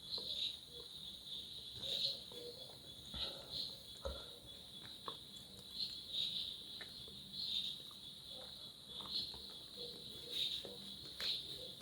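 Insects chirping in a steady high trill that swells in pulses about once a second, with a few faint scattered clicks underneath.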